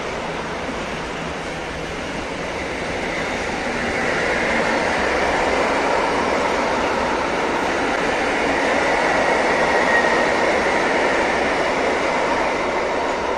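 Intermodal freight train of tank-container and semitrailer wagons rolling past: a steady rumble and rush of wagon wheels on the rails that swells about four seconds in, with a faint, thin wheel squeal near ten seconds.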